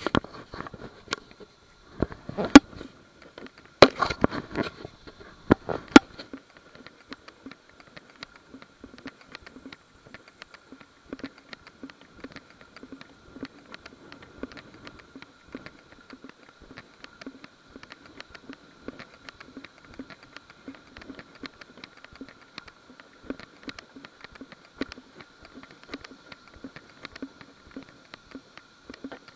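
Footsteps and rustling of someone walking a dirt and grass trail, heard close on the camera's microphone. There are several sharp knocks in the first six seconds, then soft, regular steps, with a faint steady high tone under them.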